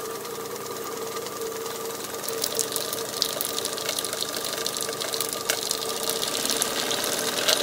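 Basic Loco GF Mars twin-cylinder model steam engine running fast under steam, a rapid even chatter of exhaust beats over a hiss with a steady tone underneath, growing gradually louder as the throttle is opened.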